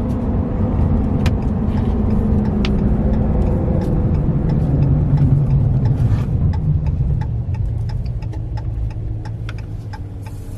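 Car cabin noise while driving: steady engine and road rumble, growing quieter over the last few seconds, with scattered faint clicks.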